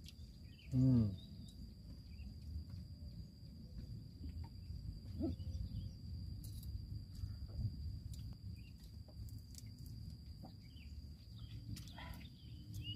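Quiet outdoor ambience: a steady low rumble with a thin, steady high whine over it, a few faint clicks, and a short voice-like sound falling in pitch about a second in.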